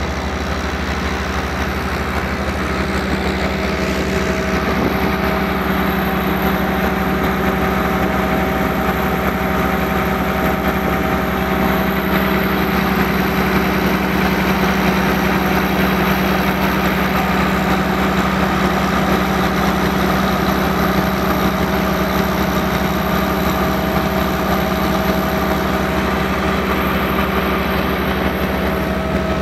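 Engine of a 100 kW biogas generator set running steadily, a constant drone with no change in speed.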